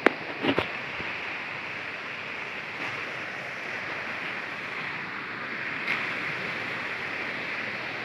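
Steady rush of water from a waterfall, with a few sharp knocks in the first second.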